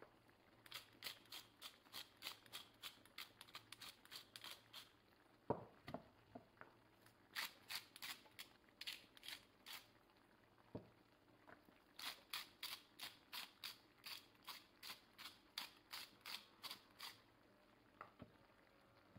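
Handheld spice grinders being twisted over a pan, their grinding mechanism clicking about four times a second in three runs of several seconds each. A couple of light knocks come about five and a half seconds in.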